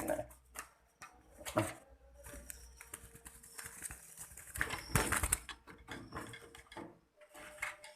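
Faint bird calls with scattered knocks and rustles; the loudest cluster of knocks comes about halfway through.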